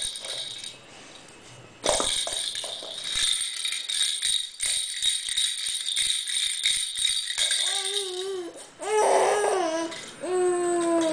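Plastic baby rattle balls being shaken, a dense rapid rattling that starts about two seconds in and runs for several seconds. Near the end a baby gives three drawn-out babbling calls.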